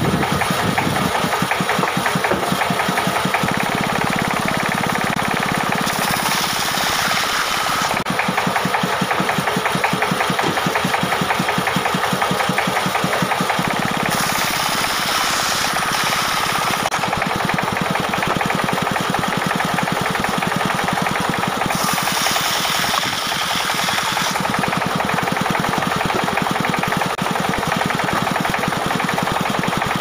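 Wood band sawmill running, its Dongfeng diesel engine chugging steadily in fast, even beats. Three short stretches of added hiss come over the engine.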